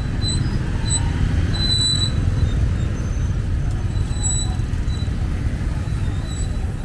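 Busy city street traffic, with motorbikes and cars passing close by in a steady low rumble. Short, high chirps sound every second or so.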